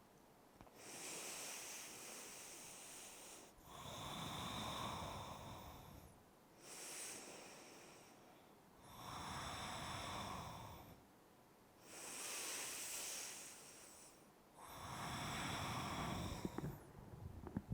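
A person breathing slowly and deeply in a yoga pose: six long, even breaths in and out, each two to three seconds long, with short pauses between them.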